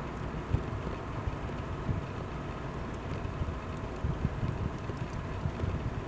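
Wind buffeting the microphone: a steady low rumble broken by irregular low thumps, with a few faint clicks.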